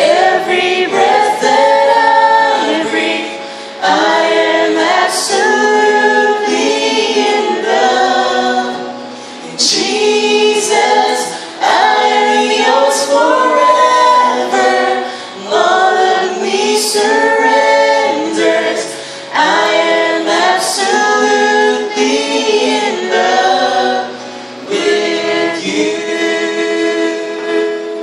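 A man and a woman singing a Christian worship song as a duet into microphones, with acoustic guitar accompaniment. The singing comes in phrases, with brief dips between them.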